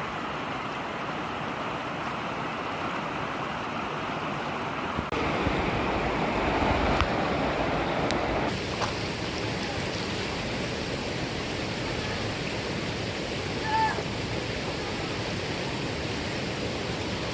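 Mountain stream water rushing steadily over rocks. The rush steps up louder about five seconds in and drops back about three seconds later.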